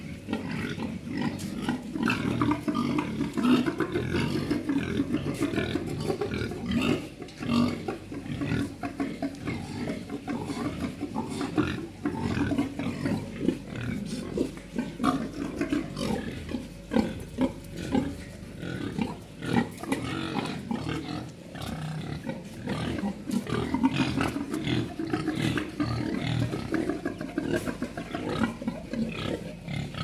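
Pigs grunting over and over, low grunts in a dense unbroken run.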